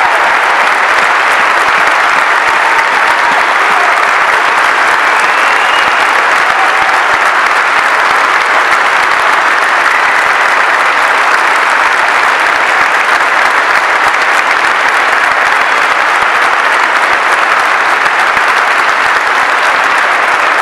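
A large crowd applauding without a break.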